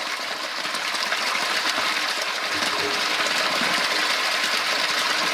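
Water pouring steadily from a drain pipe outlet and splashing onto the wet floor of a storm sewer catch basin, the discharge from a newly unclogged sump pump and downspout drain line.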